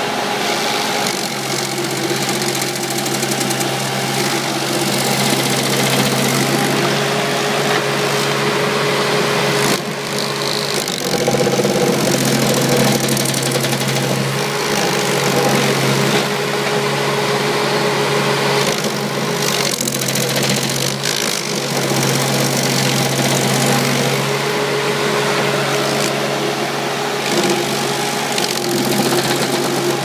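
Boxer 526DX mini skid steer's engine running steadily under load, powering a Bradco SG15 hydraulic stump grinder as it grinds a wood stump, with grinding noise over the engine note. The engine note dips briefly about ten seconds in and twice around twenty seconds in.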